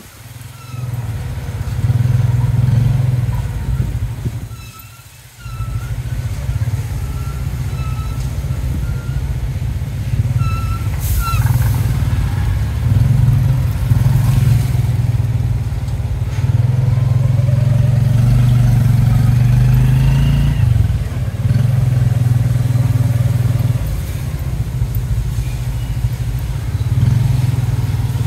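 Motorcycle engine of a tuk-tuk running with a steady low drone as it travels, easing off briefly about four to five seconds in before pulling again. A single sharp knock about eleven seconds in.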